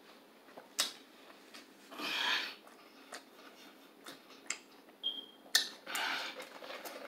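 Close-up eating sounds of a mouthful of chicken fried steak being chewed: scattered wet mouth clicks and smacks, with a soft rustle about two seconds in and another near six seconds.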